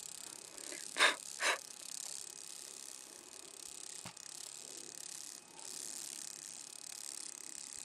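Kayak on calm river water: two short loud paddle-stroke sounds about a second in, and a single sharp click near the middle, over a steady high hiss.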